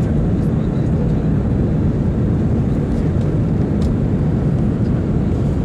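Airliner cabin noise heard inside the cabin: the steady low rush of the engines and airflow in flight.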